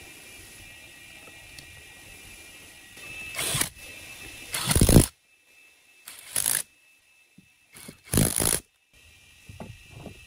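Cordless impact driver with a socket bit driving the end-cover bolts of an electric motor, in four or five short bursts starting about three seconds in, the loudest just before the middle.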